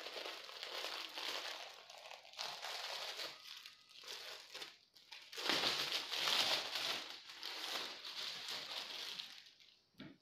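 Clear plastic wrapper of a pack of wall-decal sticker sheets crinkling as it is handled and pulled open, in irregular bouts, loudest about halfway through.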